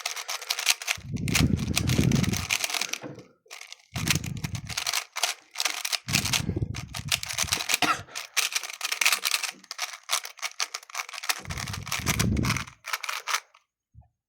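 A 3x3 speedcube being turned quickly to scramble it: long runs of rapid plastic clicking and clacking. Several low breathy rumbles, heavy breaths on the microphone, come in between the runs.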